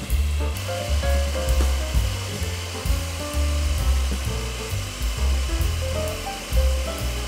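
Electric hand mixer running steadily, its twin beaters whisking cake batter, a little louder about half a second in. Background music with a bass line and melody plays over it and is the loudest sound.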